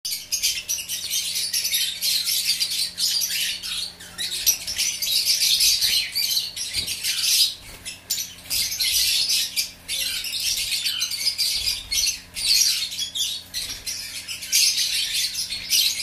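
A flock of caged Fischer's lovebirds chattering, a dense unbroken stream of shrill, high chirps that thins briefly a few times.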